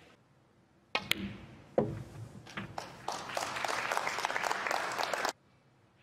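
Sharp clicks of snooker balls about one second in and again near two seconds, a shot being played and a ball potted, then audience applause for about two seconds that cuts off suddenly.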